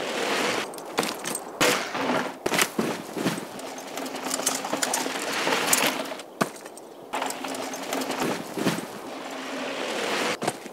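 Mountain bike ridden fast down a dusty dirt trail: tyres crunching and skidding on dirt and loose stones, with sharp knocks and rattles from the bike over bumps, louder as it passes close by.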